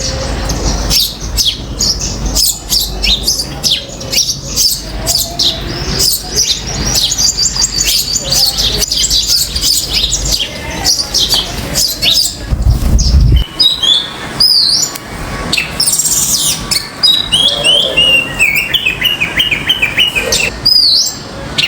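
Backyard birds chirping and calling in a dense, overlapping chorus, with common mynas among them. A low rumble sits underneath and stops partway through, after which a run of stepped, falling call notes stands out.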